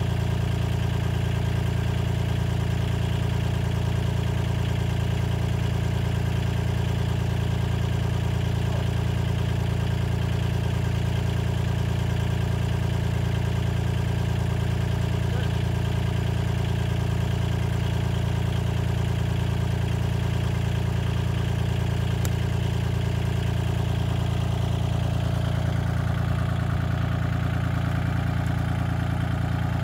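Compact tractor's engine idling steadily with a low, even hum.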